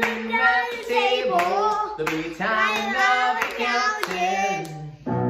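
A man and a young boy singing together without the piano, clapping their hands in time as they sing.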